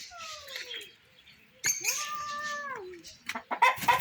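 Two long, drawn-out animal calls, the second held level and then falling away at its end, followed near the end by a brief clatter of clicks.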